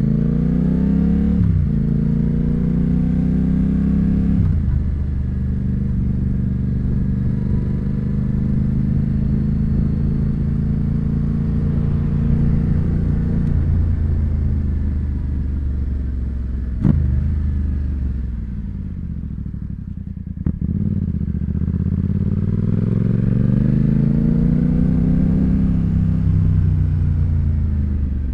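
Yamaha FZ-07 (MT-07) 689 cc parallel-twin engine running through an Ixil L3XB aftermarket exhaust while riding. It revs up with sudden pitch drops at gear changes about a second and a half and four and a half seconds in, holds a steady pull, then slows with a sharp click partway through, before revving up again and easing off near the end.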